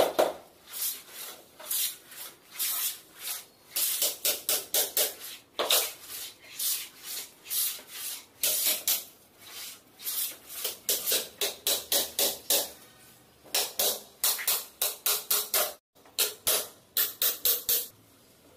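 Background music with a fast percussive beat: sharp, evenly spaced hits, several a second, that cut out briefly near the end.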